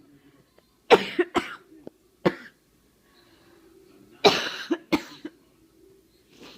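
A person coughing from a chest cold, in two short fits: about four harsh coughs, then a second fit of three starting about four seconds in.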